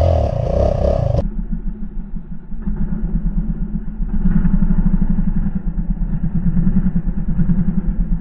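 Dirt bike engine running and being revved, with a steady pulsing beat that grows louder from about four seconds in as the rider throttles up to lift the front wheel into a wheelie.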